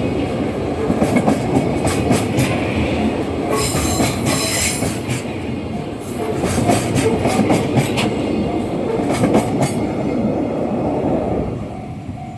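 Freight train wagons rolling past, their wheels clattering over the rail joints, with a brief high wheel squeal about four seconds in. The noise falls away near the end as the tail of the train goes by.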